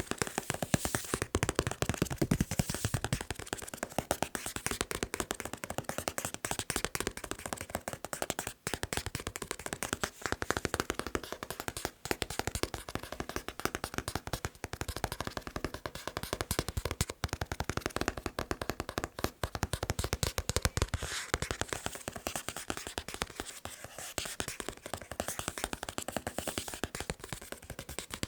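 Fast tapping by hand on a manga book: a dense, rapid stream of sharp taps with only a few brief pauses.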